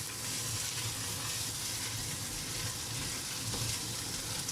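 Sliced onions with ginger and garlic frying in hot oil in a pan, a steady sizzle as the mixture is stirred, with a low hum underneath.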